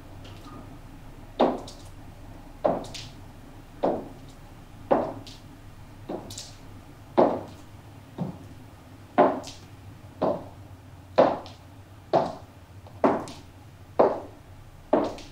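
Slow footsteps on a hard floor, about one step a second, each a sharp knock.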